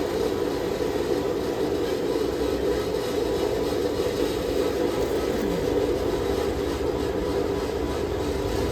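Blacksmith's forge running: a steady rushing noise that holds even throughout, with no hammer blows.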